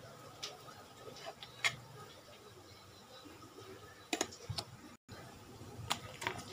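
A metal spoon clicking and tapping against a stainless steel bowl as ground chili-garlic-ginger paste is added to raw pork: a few sharp, separate clicks, with a quick cluster of them about four seconds in.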